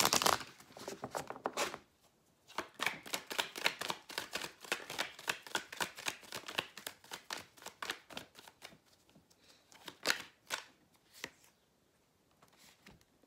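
Morgan-Greer tarot cards being shuffled by hand: quick runs of cards slapping and sliding against each other. There is a short pause about two seconds in and a few last strokes near the end.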